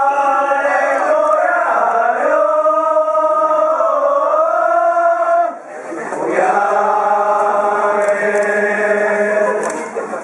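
A voice chanting a festival song in long, drawn-out notes that bend slowly in pitch. There are two long phrases, with a brief break for breath just past the middle.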